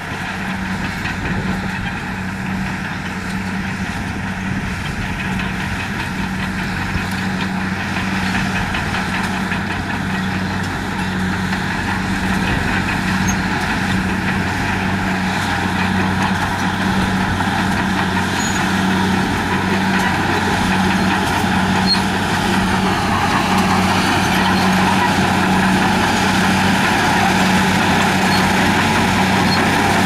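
HBXG crawler bulldozer's diesel engine running steadily under load as the blade pushes a pile of dirt, growing gradually louder as it draws closer.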